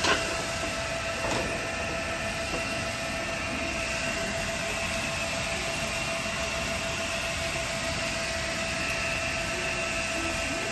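Steady mechanical drone with a hiss at a tabletop pork-belly grill. Over it come two short metal clinks of tongs on the grill pan: one at the start and one about a second and a half in.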